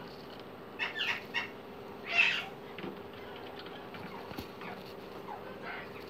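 Short, harsh calls from parakeets in a breeding aviary: a few quick ones about a second in and a louder, longer one about two seconds in, over a faint steady hum.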